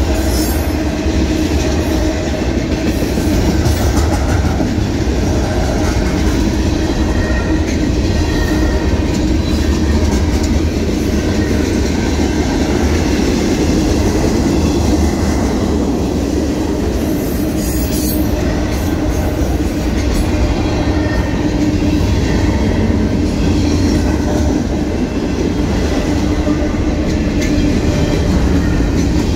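Freight cars of a passing mixed freight train rolling by at close range: a steady, loud rumble of steel wheels on the rails with clickety-clack over the rail joints.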